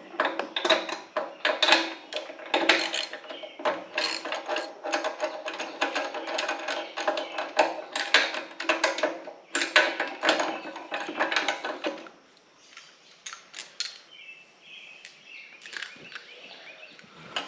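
Predator small gasoline engine being cranked over again and again for about twelve seconds, a dense run of mechanical strokes, then scattered clicks. The engine is flooded, with gasoline filling the cylinder.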